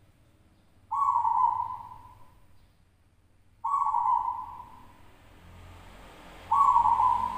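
Zebra dove (local Javanese perkutut) cooing: three song phrases about three seconds apart, each starting abruptly and trailing off over about a second.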